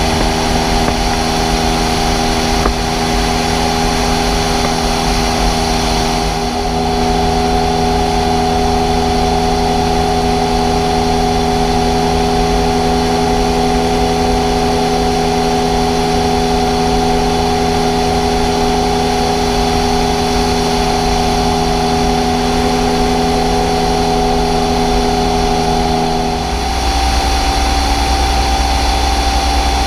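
Ultralight trike's engine and pusher propeller droning steadily in flight. Near the end the pitch shifts and a deeper low rumble comes in.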